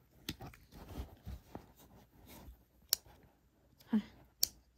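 Hands fitting small plastic GoPro camera accessory parts together: rustling and dull knocks of handling, with a few sharp clicks.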